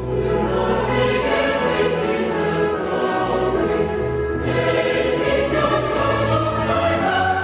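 Choral music with orchestra: a choir holding slow, sustained chords over long low notes, the chords changing every second or two.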